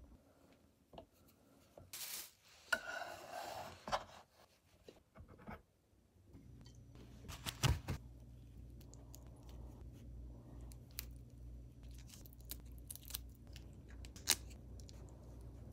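Raw whole shrimp being peeled by hand: small crackles and sharp clicks as the shell and legs are pulled away, over a steady low hum. About two to four seconds in there is a brief burst of rustling.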